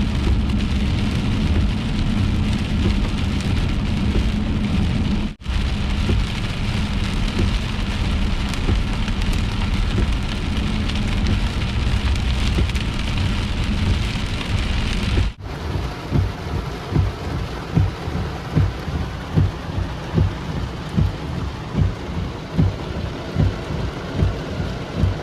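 Torrential rain pounding on a car driving through a thunderstorm, a dense steady hiss with low rumbling underneath. It cuts out abruptly twice, and in the last stretch a regular low thump repeats about every two-thirds of a second.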